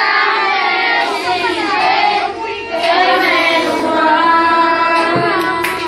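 A group of children singing a worship song together in unison, with voices holding and sliding between notes.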